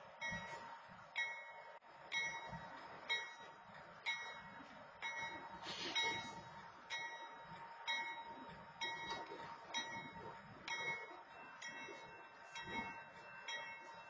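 Railroad grade-crossing warning bell ringing, its strikes coming about once a second.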